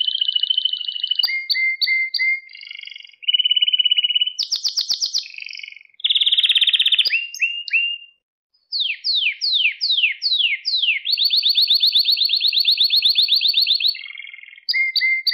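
Domestic canary singing a varied song of fast trills and rolls. About two-thirds of the way through comes a run of five quick downward-sweeping notes, then a long even rapid trill.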